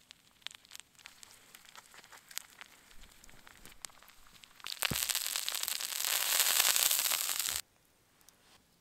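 Lumps of tree resin melting on a hot stone beside embers: light scattered crackles, then about five seconds in a loud, dense sizzling crackle that lasts nearly three seconds and cuts off suddenly.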